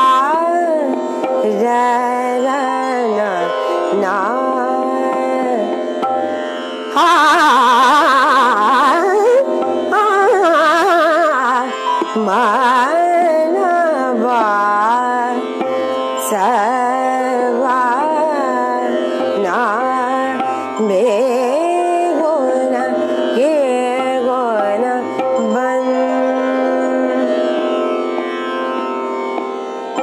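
Indian classical music: a woman's voice singing gliding, ornamented melodic lines over a steady drone, with instrumental accompaniment.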